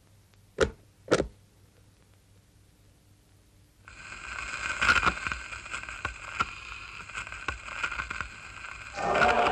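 Animated-film sound effects: two sharp knocks about half a second apart, then a few seconds of quiet. After that comes a steady scratchy whirring with crackles, and music starts near the end.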